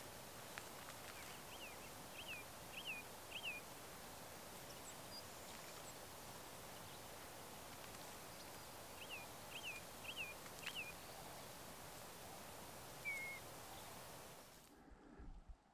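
A bird calling: two runs of four quick, rising-and-falling whistled notes, the second run about seven seconds after the first, then a single short note, all over a faint steady hiss.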